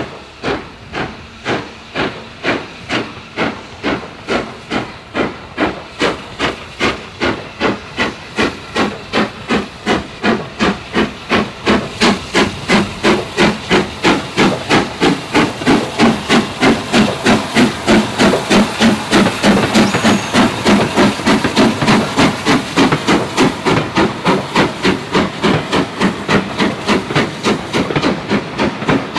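Steam locomotive working hard as it pulls away with a train. The regular chuffs from its chimney quicken from about one and a half to about three beats a second and grow louder, over a steady hiss of steam.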